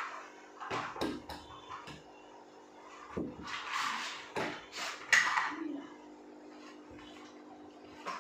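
Plastic packaging rustling and long wrapped items knocking against the cardboard box as they are pulled out, in several short bursts with a sharp clack about five seconds in, over a steady low hum.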